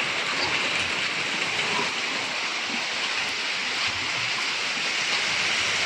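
Steady heavy rain falling, an even hiss with no letup.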